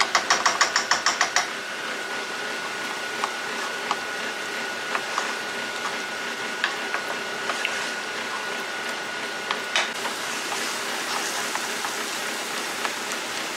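Onions and red pepper paste sizzling in a frying pan while a wooden spoon stirs them, with scattered small clicks of the spoon against the pan. A quick run of light taps opens it.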